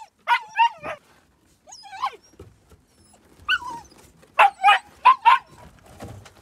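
Nine-week-old German shepherd–husky mix puppies yapping and barking in play: short, high yaps in scattered ones and twos, then a quick run of about four about four and a half seconds in.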